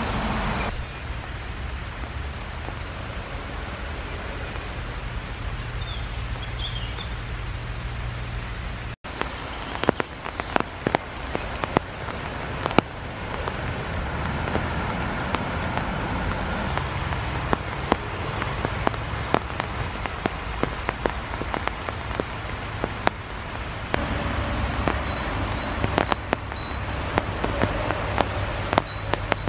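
Rain falling, with irregular sharp drops striking close by from about nine seconds in; faint high bird calls come through near the end.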